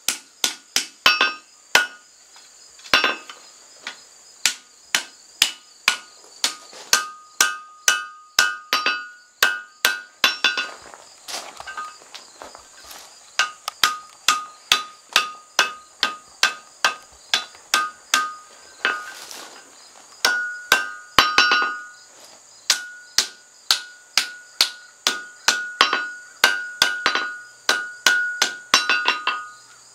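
Blacksmith's hand hammer striking red-hot steel on an anvil while forming a froe eye. The blows come steadily at about two a second, each with a short metallic ring from the anvil, broken by a couple of brief pauses. A steady high insect drone runs underneath.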